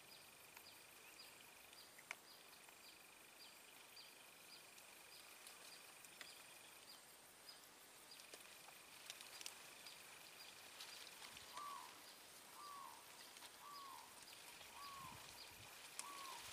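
Faint swamp wildlife ambience: a steady high buzz and a chirp repeating a little under twice a second, with a bird giving five short calls about a second apart in the last third.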